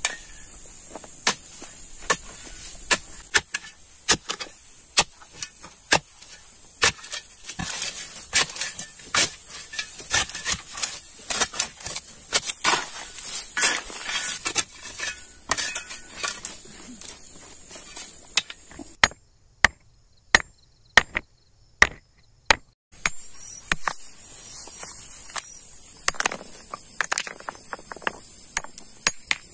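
Repeated sharp strikes of a digging tool chopping into stony soil, then a hammer knocking on slate stone. Crickets chirp steadily in the background for most of it.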